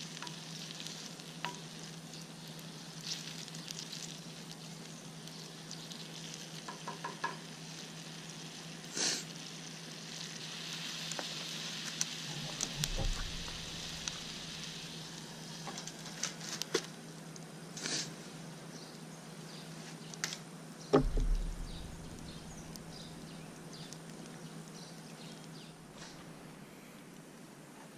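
Food sizzling in a pan over a campfire, with scattered sharp clicks. The sizzling grows louder for several seconds about a third of the way in, and there are two dull thumps, one near the middle and one about three-quarters of the way through.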